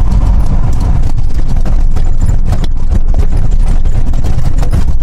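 Inside the cabin of a moving 2002 Hyundai Galloper II diesel SUV: a steady low engine and road drone with a busy, irregular rattle over it.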